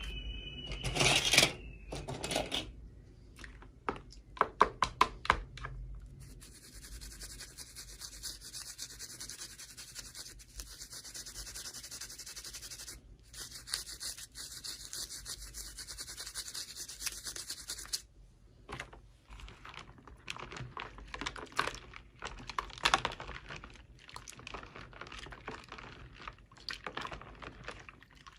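Hands handling miniature toy dolls and their packaging: rubbing, scratching and small clicks. In the middle there is a steady hissing rub lasting about twelve seconds.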